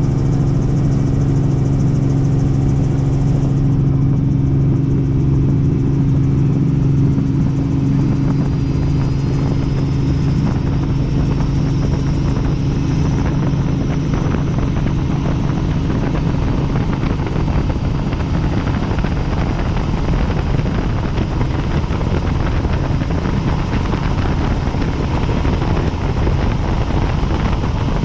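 Helicopter in flight: a steady, loud drone of turbine and rotor noise with a low hum. In the second half the hum gives way to more of a rushing noise.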